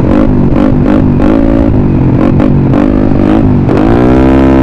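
Engine and loud aftermarket exhaust of a modified 175cc Yamaha Mio Sporty scooter under way at road speed. The engine note wavers with the throttle, dips briefly near the end, then climbs again and holds.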